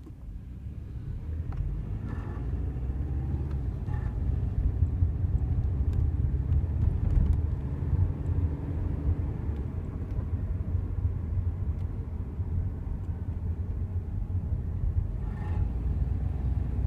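Subaru Legacy driving with a steady low rumble, and a brief groaning noise from the car about two seconds in and again near the end. The groan comes on under acceleration at low speed; its cause is unknown.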